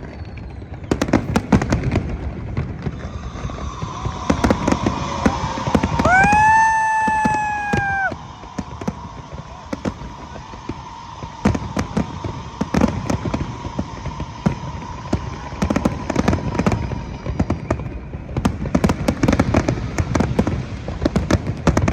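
Fireworks display: rapid bangs and crackling bursts throughout. About six seconds in, a loud whistle-like tone rises sharply and holds for about two seconds before cutting off.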